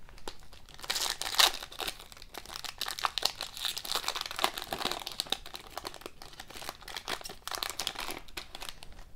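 Foil hockey card pack wrapper being torn open and crinkled as the cards are pulled out: a dense, irregular crackle, loudest about a second and a half in.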